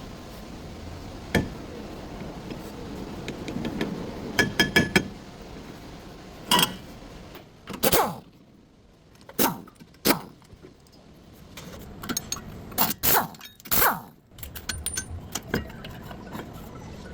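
Hand tools and metal parts clinking and knocking at irregular intervals, a few strikes ringing briefly, as work goes on at a car's front wheel bearing.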